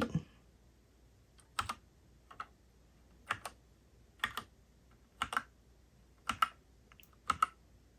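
Keys on the Whatgeek x 3inus Kebohub EE01 mechanical keyboard pressed one at a time, slowly, about once a second, each a short click.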